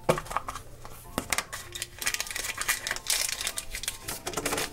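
A plastic toy capsule clicking open, then foil and plastic packaging crinkling as the contents are pulled out and unwrapped.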